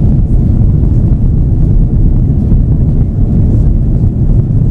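Steady, loud low rumble inside the cabin of an Airbus A330-300 during its takeoff roll: its Rolls-Royce Trent 700 engines at takeoff thrust and the runway rumble, heard from a window seat over the wing.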